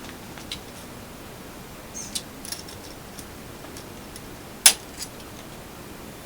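A few light clicks and taps over a steady hiss, with one sharp, louder click about four and a half seconds in and a smaller one just after.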